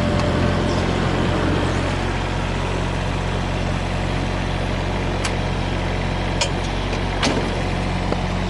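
Komatsu PC15R-8 mini excavator's diesel engine running steadily at idle, with a few short clicks about five to seven seconds in.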